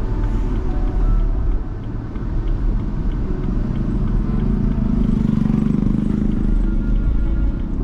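A car driving through city streets: steady low road and engine rumble, growing heavier for a couple of seconds around five to six seconds in.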